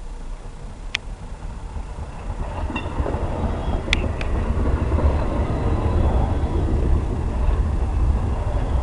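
A train running, its low rumble building over the first few seconds and then holding steady, with a few sharp clicks about a second and four seconds in.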